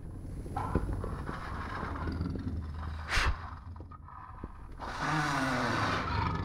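Jaguar snarling and growling through the cage bars, with a short sharp burst just after three seconds and a louder growl falling in pitch near the end.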